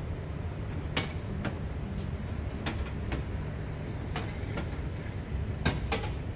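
Steady low rumble of open-air ambience on a ship's deck, broken by four pairs of short sharp clicks, the clicks in each pair about half a second apart and the last pair the loudest.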